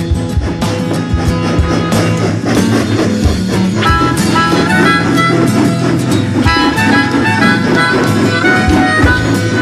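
Instrumental background music with a steady beat and held melodic notes.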